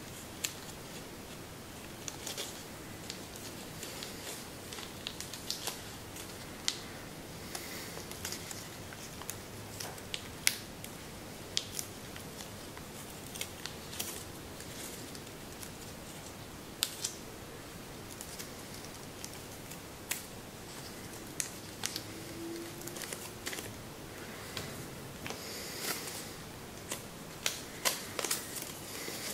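Sheet of Kami origami paper being folded and shaped by hand: irregular soft rustling with many sharp crackles as creases are pressed, coming thicker near the end, over a steady low hiss.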